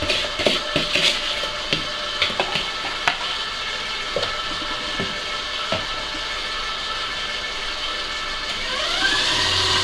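Stand mixer motor running steadily with its beater creaming butter and caster sugar in a steel bowl, with sharp taps in the first few seconds; near the end the motor's whine rises in pitch as it speeds up and gets a little louder.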